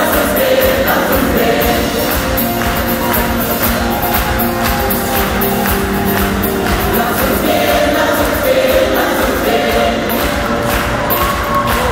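Live band and a large gospel choir performing a song together, many voices singing over guitars and a steady beat, heard from within the concert audience.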